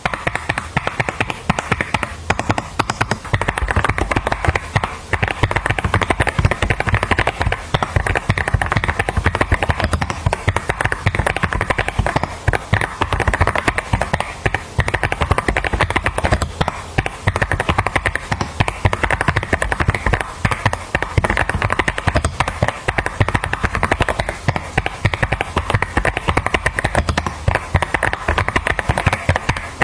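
Mechanical keyboard with pastel artisan keycaps being typed on quickly and without a break, a dense run of key clacks.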